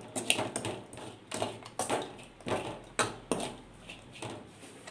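A metal spoon scraping and knocking against a metal kadai while onions are stirred in it, in short irregular strikes about two a second.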